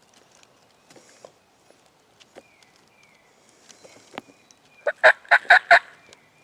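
Wild turkey gobbling close by: one loud gobble, a quick rattle of about half a dozen pulses, about five seconds in, after a few faint ticks.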